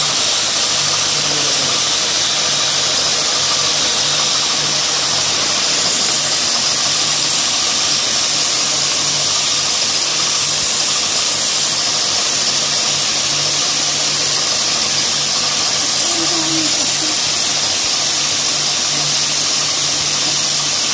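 Multi-spindle yarn winding machine running steadily: an even, high whirring hiss over a constant low hum.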